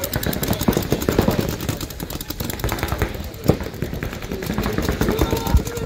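Paintball markers firing in rapid strings, many shots a second, with one sharper crack about halfway through.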